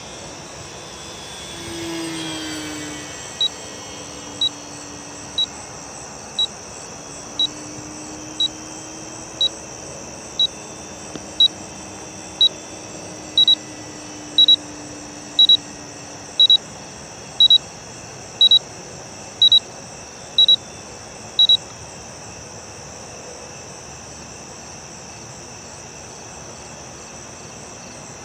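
An electronic beeper sounds a short high beep about once a second, roughly nineteen times, growing louder, and stops about three-quarters of the way through. Under it, crickets chirr steadily. Near the start comes a brief passing whine that falls in pitch.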